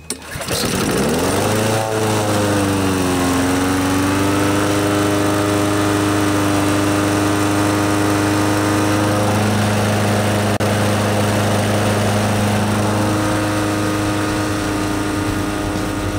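Honda GCV160 lawnmower engine starting on the pull about half a second in, its speed dipping and recovering for a few seconds before it settles into a steady run.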